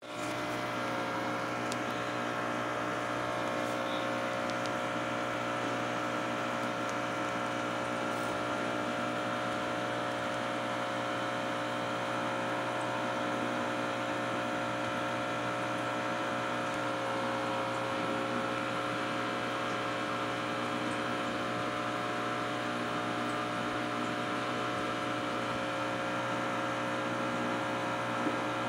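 Steady electric hum of aquarium equipment, a constant drone of several fixed tones over a light hiss.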